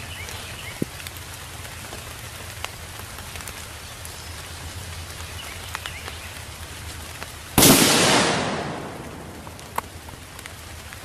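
Steady rain falling, then a single 6mm Creedmoor rifle shot about seven and a half seconds in, its report fading over a second or so.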